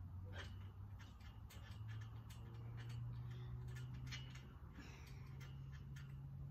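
Trampoline springs and frame clicking and creaking irregularly as a person bounds and lands on all fours on the mat, over a low steady hum.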